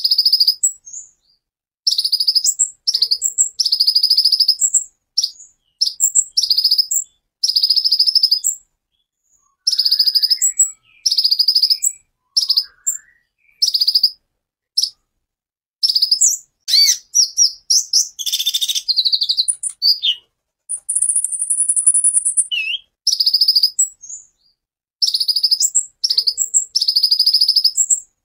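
Male Van Hasselt's sunbird ('kolibri ninja') singing in rapid, very high-pitched bursts: sharp notes and fast buzzy trills, each burst under a second long, separated by short pauses.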